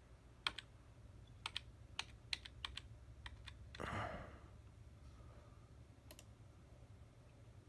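A run of light, sharp computer clicks, about a dozen spread over three seconds, from a mouse or keys working through a settings dialog. A short soft rush of noise about four seconds in.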